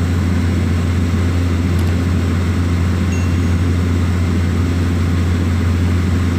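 Steady drone of a small propeller aircraft's engine and propeller in cruise, heard inside the cabin as a constant low hum with rushing noise over it.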